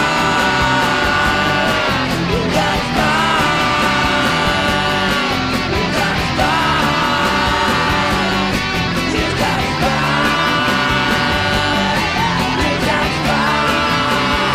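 Rock music played by a band, with long held lead notes that bend in pitch over a steady full mix.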